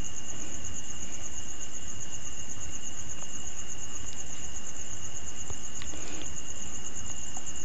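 Crickets trilling steadily in a high, fast-pulsing tone over a constant background hiss.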